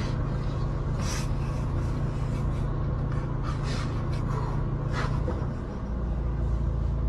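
Steady low hum of a car's interior, with a few faint short rustling sounds; the hum thins out a little past the middle.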